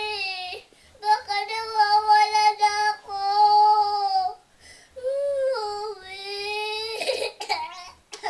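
A four-year-old girl crying in long, drawn-out wails, each held on a steady pitch for a second or more with short breaks between, and one wail falling in pitch near the end. The crying is acted for a pretend scene.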